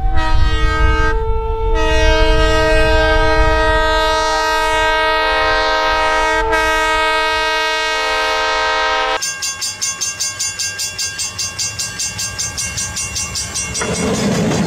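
Diesel locomotive's multi-chime air horn sounding a short blast and then a long held chord for about seven seconds over the rumble of the train as it plows through snow. After about nine seconds the sound changes to a fast, even rhythmic beat of the train running, about four to the second.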